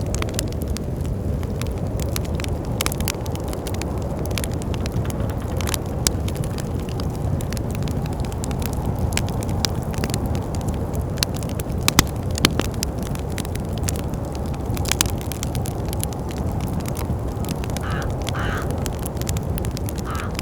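Wood fire crackling in a fireplace, with irregular sharp pops, over a steady low rush of wind.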